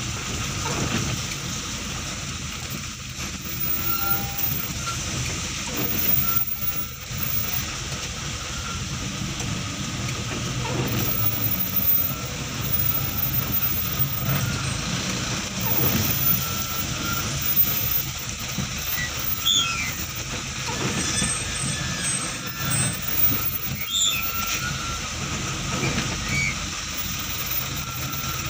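Heavy vehicle's engine running as it creeps through stop-and-go traffic, a steady low rumble heard from inside the cab, with a few brief squeaks now and then.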